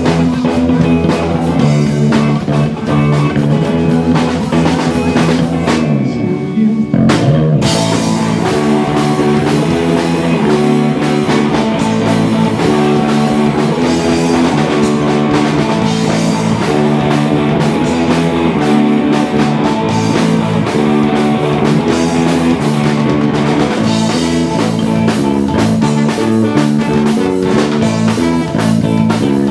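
Live rock band playing loudly, with electric guitars and drums. About six seconds in the top end thins out for a moment, then the full band comes back in.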